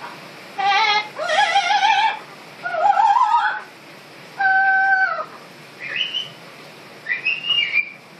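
Amazon parrot singing in wavering, opera-like phrases: several warbling notes in the first half, a steady held tone around five seconds in, then shorter chirps. A steady hiss of rain runs behind it.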